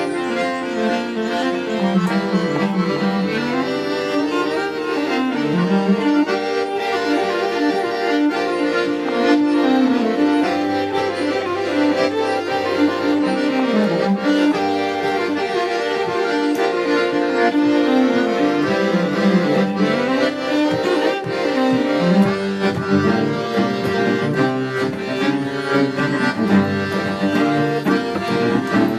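Accordion and fiddle playing an instrumental folk tune together, with a bowed cello part underneath.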